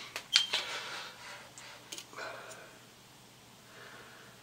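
Hand handling of metal tooling on a milling machine table: a sharp metallic clink with a short ring about half a second in, a few lighter clicks, and brief rubbing and shuffling as a dial test indicator is moved into position against the pin.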